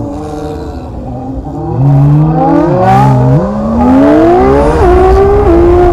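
Car engine accelerating hard through the gears: the engine note climbs, drops at each quick upshift and climbs again several times, getting much louder about two seconds in. Heard from inside the cabin.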